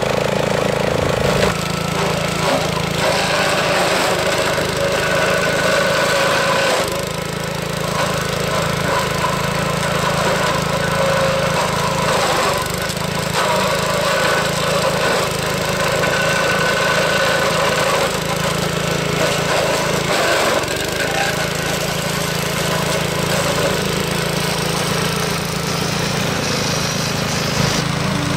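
Briggs & Stratton 344 cc engine of a self-propelled walk-behind brush mower running steadily under load, as its mulching blades cut through tall grass and brush. Woody stems crackle and snap in the blades.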